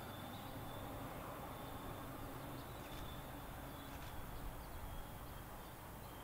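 Faint, steady rumble of an MBTA diesel commuter train pulling away into the distance, fading slightly, with outdoor background noise and a few faint high chirps.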